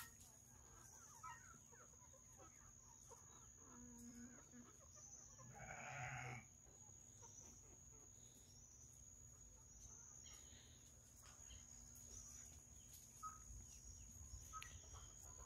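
Near silence, with a few faint farm-animal calls; the clearest is a single call lasting about a second, about six seconds in.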